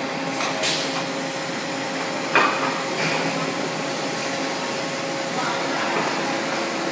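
Block-making plant machinery running with a steady hum while a pneumatic clamp cuber grips and stacks hollow concrete blocks. A brief hiss comes about half a second in, and a single sharp clank about two and a half seconds in.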